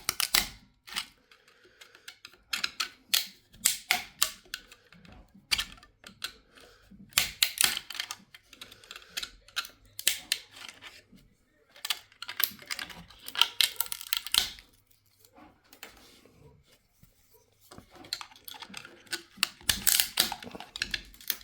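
Plastic 3D-print support material being snapped and broken off a print: irregular bursts of sharp crackling clicks, with short pauses between bursts.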